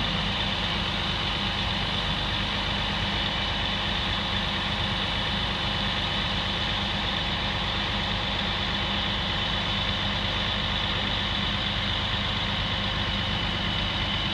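Truck engine running steadily to drive the hydraulics of a Palfinger PK 24001 knuckle-boom crane as its telescopic boom extends, with a steady high whine over the low engine note.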